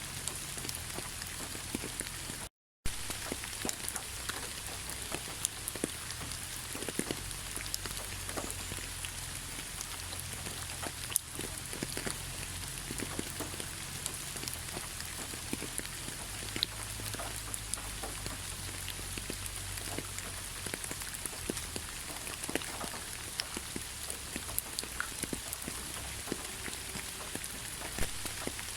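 Heavy rain falling: a steady hiss dotted with sharp individual drop hits, broken by a brief dropout to silence about two and a half seconds in.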